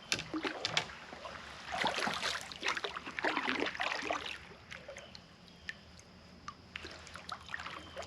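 Water sloshing and splashing against a kayak, with scattered sharp clicks and knocks. It is loudest from about one and a half to four and a half seconds in.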